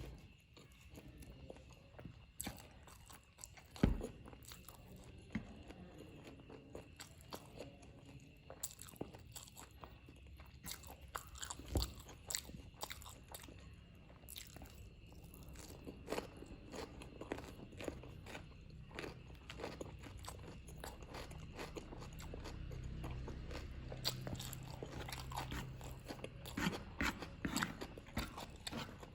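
Close-miked eating sounds: a person chewing and biting fried noodles, with many small wet mouth clicks and crackles. Two sharp knocks stand out, about four seconds in and again near twelve seconds.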